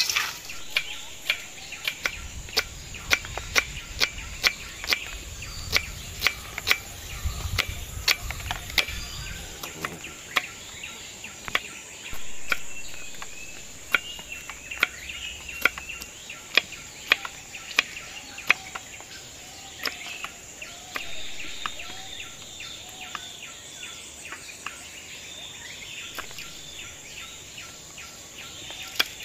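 Knife blade striking a wooden cutting board as tomato and green chillies are sliced, sharp single taps about one or two a second, over a steady high-pitched insect buzz and occasional faint bird calls.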